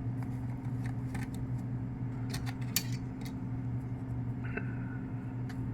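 Scattered small clicks and taps of the safety sensor wires being pushed into the opener logic board's terminals, over a steady low electrical hum.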